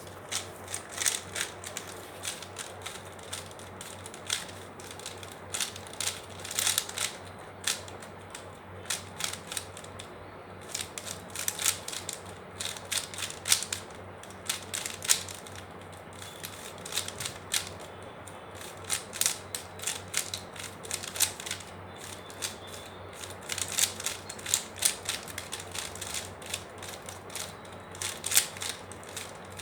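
Plastic 3x3 Rubik's cube being turned fast by hand during a timed solve: rapid, irregular clicking and clacking of the layers, coming in quick flurries with short pauses between them.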